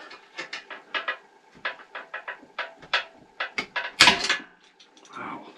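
Ratchet wrench clicking in short runs while loosening tight bolts on a Honda HS828 snowblower, a few clicks a second, with a louder metallic clatter about four seconds in.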